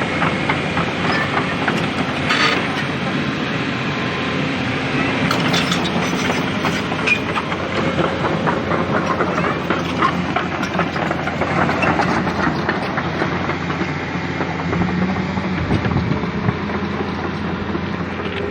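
Steady engine rumble of heavy machinery with irregular clanking and rattling throughout.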